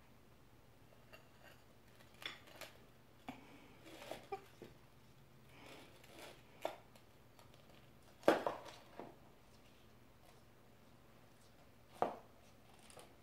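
Scattered clicks and knocks of a box turtle's shell and claws against a small ceramic dish and the wooden floor as it clambers around in the dish and climbs out. The loudest knock comes a little past the middle, with another sharp one near the end.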